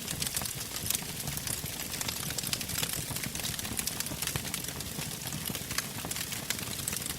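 Wood campfire crackling steadily, with many sharp pops and snaps over a low, even rumble.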